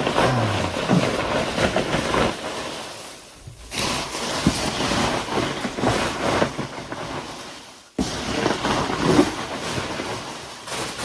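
Styrofoam packing peanuts rustling and crunching as hands dig through a shipping box. The noise dies down twice and picks up again suddenly.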